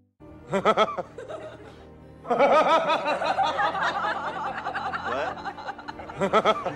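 Comic background music with a short snickering laugh sound effect about half a second in and the same effect again near the end; a denser stretch of wavering music fills the middle.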